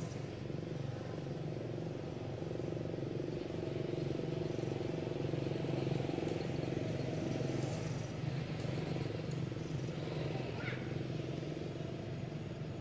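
A steady motor engine hum, swelling a little toward the middle and easing off again.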